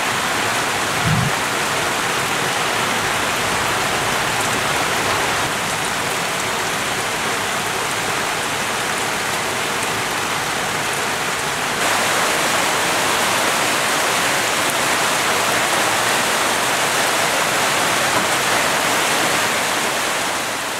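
Steady monsoon rain falling on leaves, an even hiss of many drops. A brief low thump about a second in, and the rain is a little louder from about twelve seconds in.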